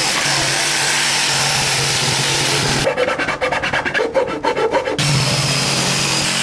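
Electric jigsaw cutting through a wooden decking board. It runs steadily, then gives way to a choppier, broken sound for about two seconds in the middle, and runs again near the end.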